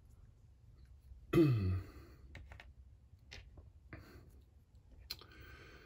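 A man's short sigh with a falling pitch about a second and a half in, then a few faint clicks and taps of plastic as an action figure's hand is worked off its wrist peg.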